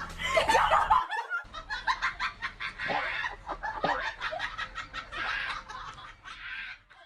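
A person laughing in quick repeated bursts, with a brief break about a second in.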